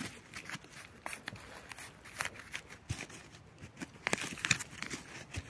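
A hand rummaging through loose soil and dry leaf litter in a freshly dug hole, making scattered crackling and rustling with a denser flurry about four seconds in.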